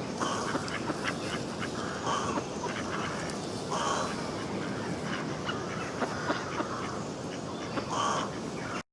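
Duck quacking, one short call every one to two seconds, over a steady background hiss with small clicks; the sound cuts off suddenly near the end.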